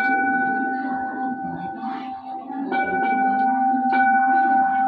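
A Buddhist bowl bell struck three times, about a second in apart at first then closer: once at the start, again near 3 seconds and again about a second later, each strike ringing on in a long, steady, clear tone. It is the bell that paces the prostrations before the altar.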